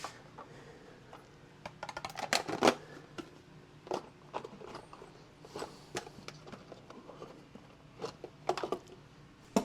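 Tools and metal parts being handled by hand: scattered clicks and knocks, busiest about two seconds in, with a few more single knocks later.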